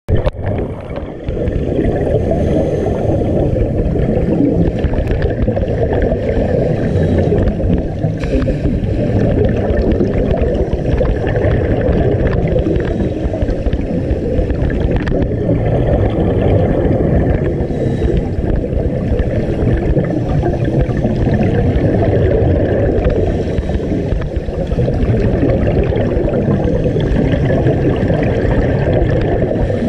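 Steady, muffled underwater rush and gurgling as picked up by a GoPro in its waterproof housing, with the bubbling of scuba divers' exhaled breath.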